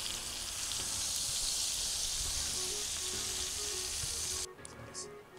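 Food sizzling as it fries, a steady hiss that cuts off suddenly near the end.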